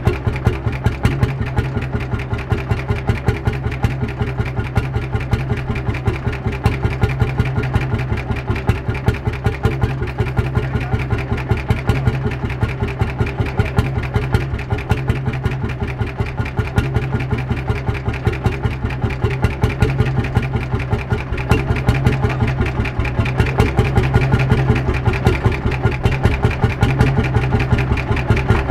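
Lanz Bulldog tractor's single-cylinder two-stroke hot bulb engine running steadily at idle, its exhaust beating in an even, rapid rhythm.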